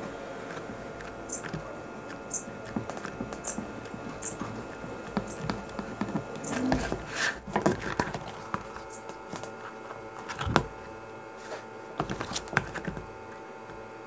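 Handling noise from leather-working by hand: scattered light clicks and taps with soft rustling, and a few louder knocks near the middle.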